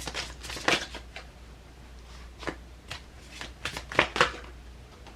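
Tarot cards being shuffled and handled, a string of irregular light snaps and rustles.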